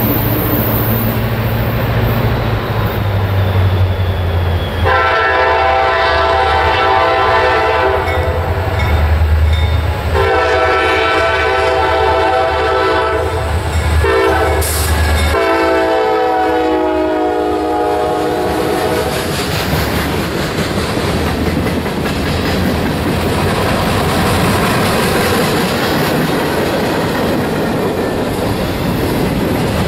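CSX freight train led by an SD40-2 locomotive sounding its air horn in the grade-crossing pattern: long, long, short, long, over the rumble of the approaching diesels. The freight cars then roll past with a steady rumble of wheels on rail.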